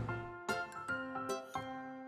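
Children's background music: a light melody of short, bright plucked or chime-like notes, a few a second, each dying away quickly. A low rumble fades out in the first half second.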